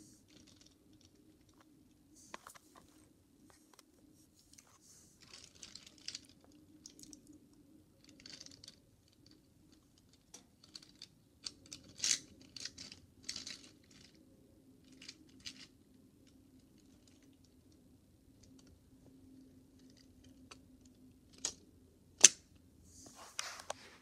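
Small toy car handled and pushed by hand along a hard ledge: light scrapes of its wheels and scattered small clicks, with the sharpest knocks a couple of seconds before the end, over a faint steady hum.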